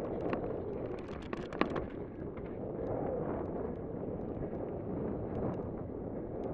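Wind rushing over the microphone and a 2011 Cannondale Jekyll full-suspension mountain bike rattling as it rolls fast over rock and dirt, with a cluster of sharp knocks from the tyres and frame hitting rock ledges between one and two seconds in.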